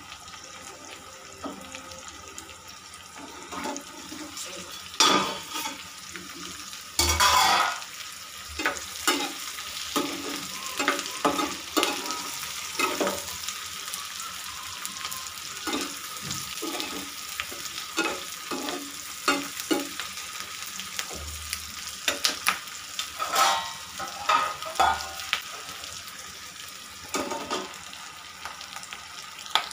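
Onion, capsicum and tomato frying in a non-stick pan on a gas stove: a steady sizzle with many scattered clinks and knocks of metal utensils and a steel lid against the pan.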